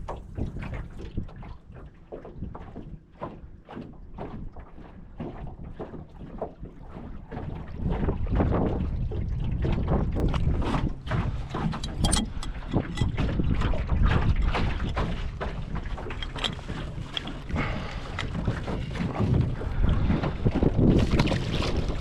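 Strong wind buffeting the microphone: a low rumble broken by crackling gusts, growing heavier about eight seconds in.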